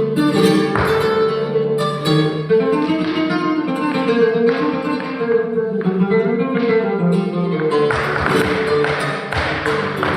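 Live acoustic music led by plucked guitar in a Latin, flamenco-like style, with one note held over a lower melody that rises and falls. About eight seconds in, the playing becomes fuller and busier.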